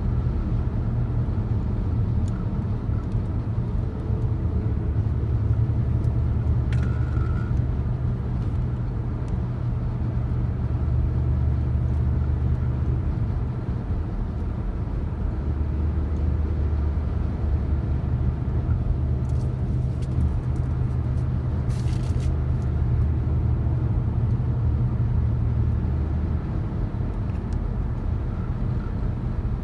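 Steady low drone of a vehicle on the move, engine and road noise. A few faint clicks come about a quarter of the way in and again about two-thirds in.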